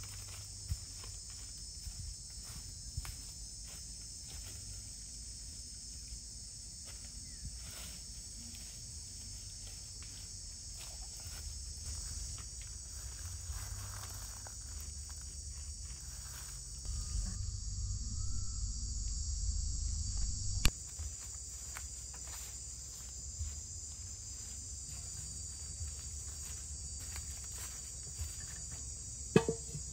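Steady high-pitched insect chorus, with footsteps crunching through dry fallen leaves and stones being set down on the ground. There is a sharp knock about two-thirds of the way through and another near the end.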